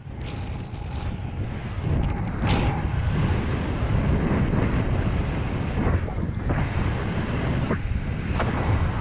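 Airflow buffeting the microphone of a camera on a paraglider in flight: a steady, heavy wind rumble with a few short gusty rustles. It swells in over the first couple of seconds.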